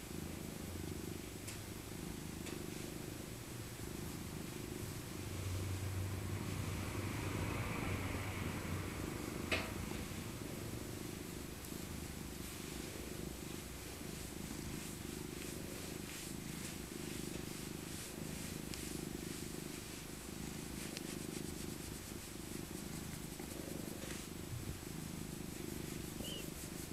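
Domestic cat purring steadily while being stroked, the purr swelling louder for a few seconds in the middle. A single brief sharp click about nine seconds in.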